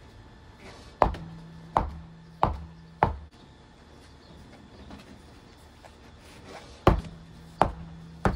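A run of sharp, hollow thuds at a steady pace, four in the first few seconds and three more near the end, each with a short low ring after it.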